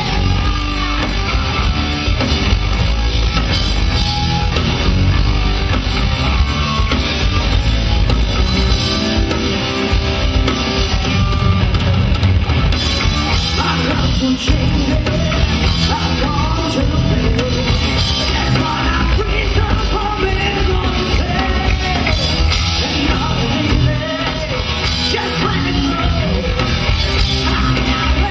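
Rock band playing live: electric guitar, bass guitar and drum kit, with a lead vocalist singing over them.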